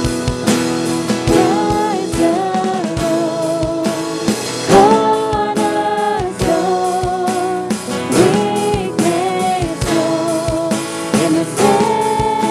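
Contemporary worship song sung with a band: voices hold long, slightly wavering notes over a steady drum beat.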